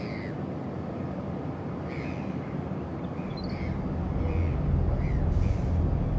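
Outdoor ambience: birds calling in short, repeated calls over a steady low rumble, which grows louder about four seconds in.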